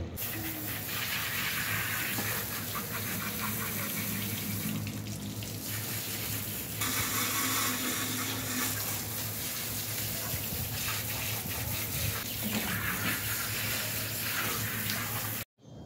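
Water running from a garden hose onto a hanging lamb carcass as it is rinsed: a steady gushing hiss that cuts off suddenly near the end.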